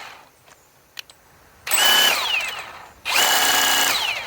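Cordless impact wrench motor run in two trigger pulls, each spinning up to a steady high whine and winding down, with a single click about a second in.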